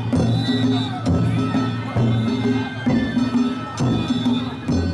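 Danjiri festival float music: a taiko drum and small metal gongs beaten in a steady repeating rhythm, with a heavy stroke about once a second and the gongs ringing between.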